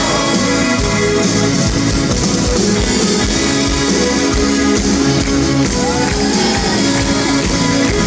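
Live rock band playing loud through a festival PA, with electric guitars and a drum kit.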